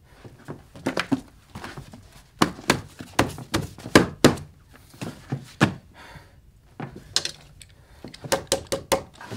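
Scuffle: a rapid, irregular run of thuds and knocks, bunched in flurries, the loudest about four seconds in.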